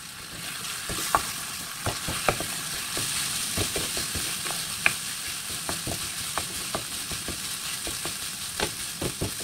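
Rice stir-fried in hot oil in a metal wok: a steady sizzle with frequent irregular clacks and scrapes of a wooden spatula against the pan as the rice is broken up and tossed.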